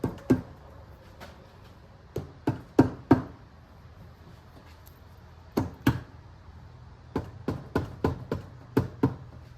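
Sharp knocks of a tool tapping on a 2006 Yamaha YZ250's engine cylinder to break it free from the crankcase for removal. The knocks come in bursts: two at the start, four in quick succession about two seconds in, two near six seconds, then a steadier run of about eight to the end.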